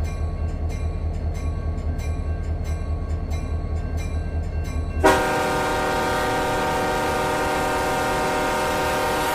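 Diesel locomotive running with a low, pulsing rumble and regular light ticks about two or three a second. About five seconds in, its air horn sounds one long, steady multi-note blast that holds to the end, sounded for a grade crossing ahead.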